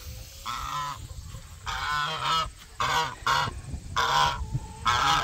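White domestic goose honking repeatedly, about six short calls in a row.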